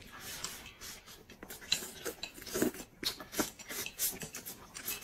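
Close-up eating sounds of people eating rice and stew with chopsticks: irregular chewing, wet mouth clicks and smacks.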